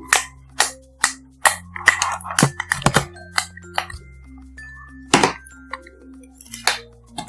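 Fluffy slime being squished and mixed, giving sharp clicks and pops about eight times, over light background music with held notes and a bass line.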